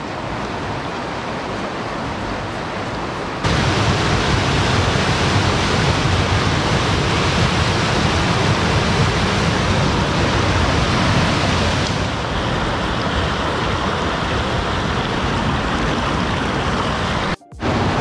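Mountain creek white water rushing over a rocky cascade, a steady rush of water. It jumps louder abruptly a few seconds in, shifts slightly later on, and cuts out for a moment near the end.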